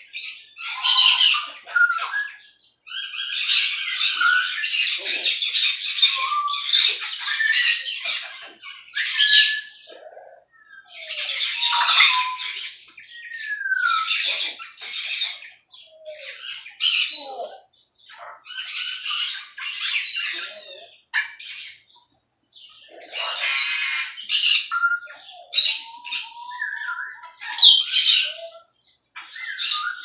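Caged parrots squawking in loud, harsh calls that come every second or two, mixed with a few short whistled notes that glide in pitch.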